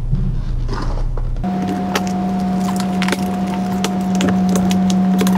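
Small parts of a paint sprayer pump repair kit clicking and clinking as they are handled, over a steady hum that gives way to a higher, steadier hum about a second and a half in.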